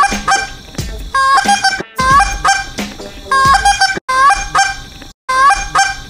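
Waterfowl calling in a rapid series of short, loud, pitched calls, several a second. The runs of calls break off with sudden cuts about two seconds in, about four seconds in and just after five seconds, like an edited recording.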